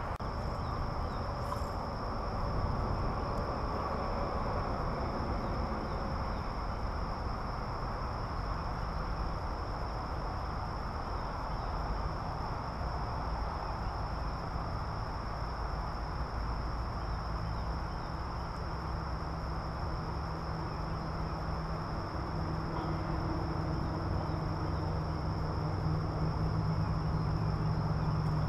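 Insects buzzing steadily at one high pitch, over a rushing outdoor background. A low hum comes in partway through and grows louder near the end.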